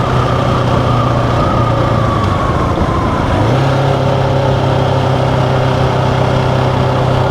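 GasGas ES700 motorcycle's single-cylinder engine running steadily. Its pitch eases down over the first few seconds, then settles a step higher about three and a half seconds in.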